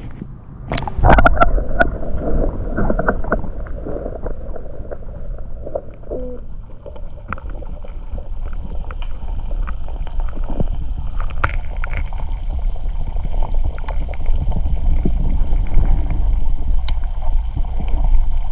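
Steady low rumble of water and wind against the microphone, with scattered knocks and clicks and a louder burst about a second in.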